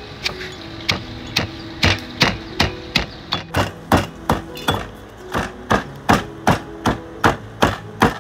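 Wooden pestle pounding sliced lemongrass in a heavy stone mortar, grinding it toward a herb paste: a steady run of dull thuds, about three a second, starting about a second in.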